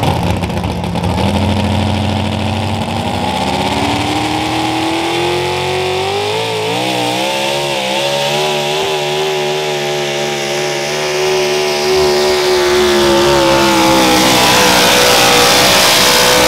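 Modified four-wheel-drive pulling truck's engine at full throttle, dragging a weight-transfer sled down a dirt track. The revs climb over the first several seconds, hold high with a wavering pitch as the truck works under the load, then rise again near the end.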